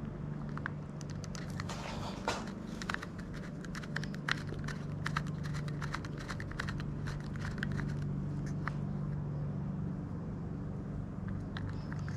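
Light clicks and crinkly handling noises as bicycle shift cable housing is twisted and pushed into place, thickest in the first two-thirds, over a steady low hum.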